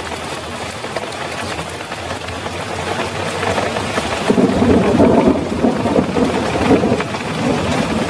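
Heavy rain falling steadily on the road and surroundings. About four seconds in, a louder low rumble swells up and carries on under the rain.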